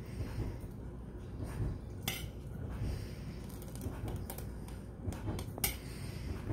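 Metal spoon clinking and scraping against a stainless steel saucepan while mac and cheese is scooped into plastic bowls: a few sharp clinks, the loudest about two seconds in and again about five and a half seconds in, over a low steady hum.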